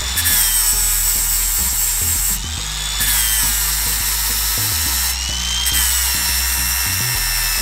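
DeWalt cordless angle grinder with a flap disc grinding down a weld on a three-wheeler frame tube. Its high whine sags and recovers in pitch about three times as it is leaned into the metal.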